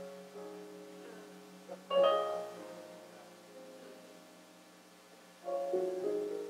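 Soft keyboard music playing slow sustained chords, with a new chord struck about two seconds in and another near the end, each fading away between.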